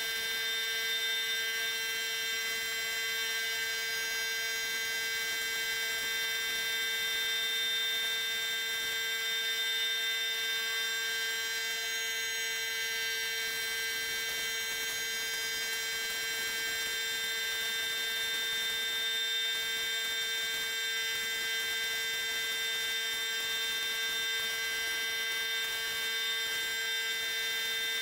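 Steady machine hum with several high whining tones, unchanging throughout.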